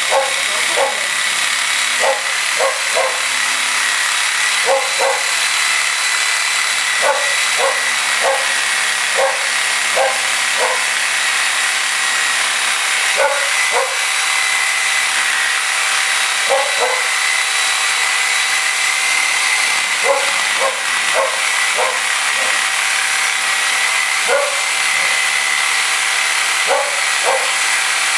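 DeWalt DW303M corded reciprocating saw running steadily with a high whine, its blade cutting through a frozen turkey. A dog barks in short clusters of two or three every couple of seconds.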